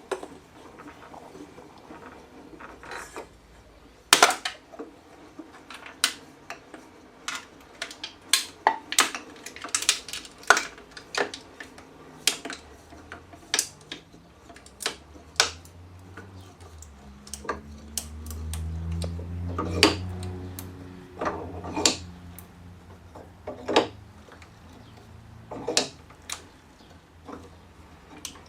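A can being crushed in a wooden leg vise as the vise screw is wound in: a long run of sharp metallic clicks and cracks. In the middle a low steady drone swells up and fades again.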